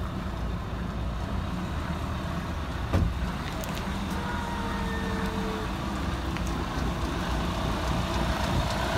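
Diesel engine of a charter motorcoach idling with a steady low rumble. A single short knock sounds about three seconds in.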